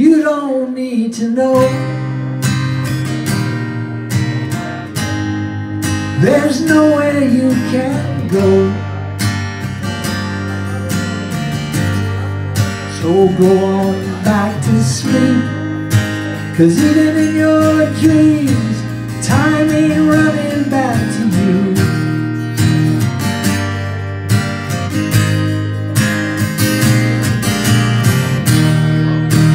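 Live acoustic guitar strumming with an electric bass underneath, and a man singing the melody in phrases over them.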